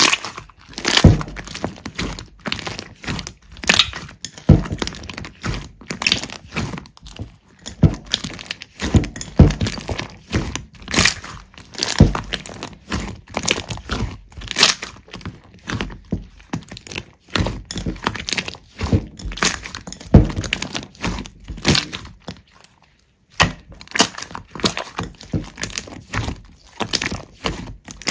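Hands squeezing and poking a large slime: an irregular run of sharp sticky pops and crackles, with a brief lull near the end.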